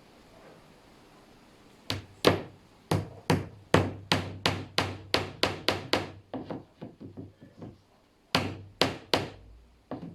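Hammer driving shelf-support pins into a wooden upright: a fast run of sharp strikes at about three a second starting about two seconds in, then lighter taps, then three hard blows near the end.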